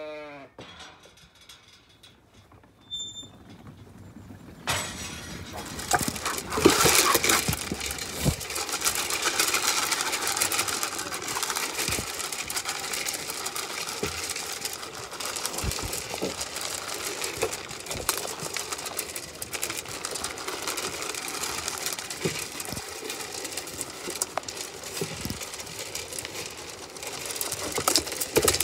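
Zwartbles sheep eating feed pellets from a metal trough right at the microphone. About five seconds in, a dense, irregular crackle of crunching and rattling pellets starts and carries on, with frequent sharp knocks against the trough.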